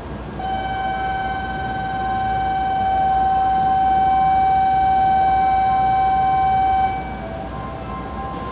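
Electronic departure warning tone on a shinkansen platform, one steady pitch held for about six seconds and then cut off, sounding as the platform fence and train doors close. A low steady station and train hum continues underneath.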